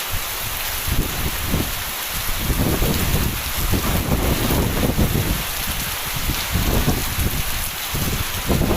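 Heavy rain falling steadily, with strong wind gusting in irregular low rumbles against the microphone.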